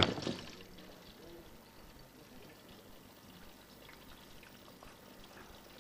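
A sharp clack right at the start, then faint light clicks and handling noise as whole mushrooms are taken from a bowl and trimmed with a knife.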